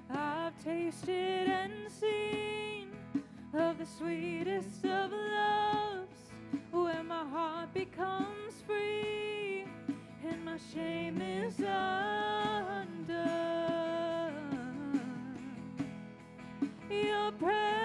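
Contemporary worship band playing, with a voice singing a melody over the band.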